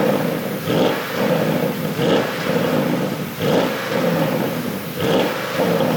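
Porsche Panamera GTS twin-turbo V8, its ECU tuned for exhaust pops, revved in repeated throttle blips, the engine rising and dropping back about once a second.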